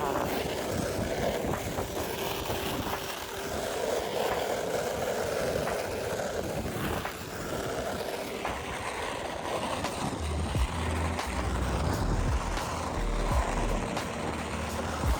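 A sled sliding and scraping down an icy, snow-covered hill, a steady rough hiss. From about ten seconds in, wind buffets the microphone with a low rumble.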